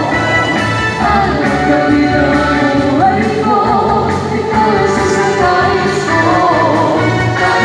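Live praise-and-worship song: a small group of singers on handheld microphones with electronic keyboard accompaniment, amplified through PA speakers.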